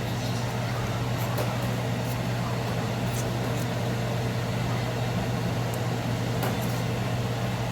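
Steady mechanical hum of a kitchen appliance's motor or fan, with a few faint light clicks.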